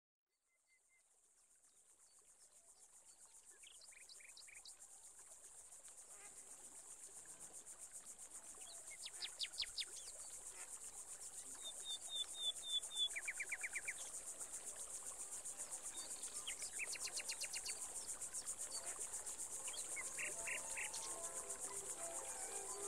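Woodland ambience fading in from silence: a steady, high, fast-pulsing chirring of insects, with birds calling in short runs of quickly repeated notes every few seconds. Soft sustained musical notes come in near the end.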